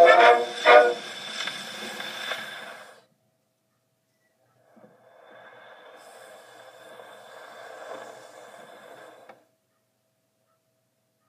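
The steel comb of a Reginaphone disc music box plucks the last notes of a tune, which ring away over about three seconds. After a short pause, a faint steady whirring runs for about four and a half seconds and then cuts off suddenly.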